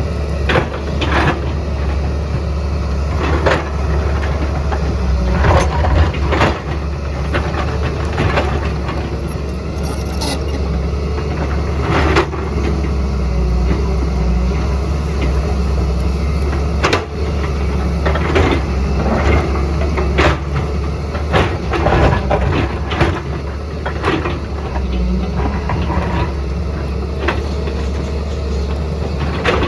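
JCB excavator working, its diesel engine running with a steady low drone under irregular knocks and clatters.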